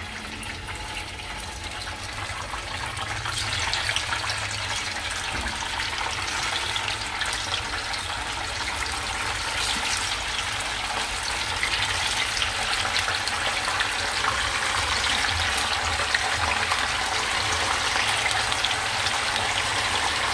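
Slices of tofu deep-frying in a pan of hot oil: a steady crackling sizzle that grows louder as more slices go in.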